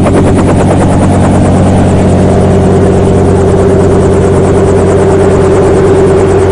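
Helicopter running steadily: fast, even rotor-blade chop over a steady engine drone, with a humming tone that grows stronger about two seconds in.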